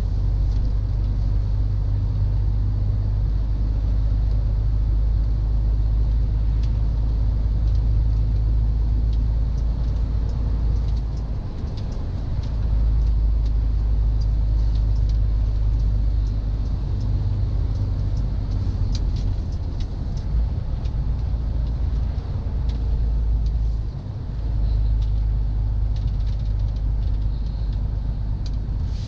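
Inside the cab of a MAN truck on the move: a steady low rumble of diesel engine and road noise. The rumble drops off briefly twice, about twelve seconds in and again near twenty-four seconds, with faint light rattles throughout.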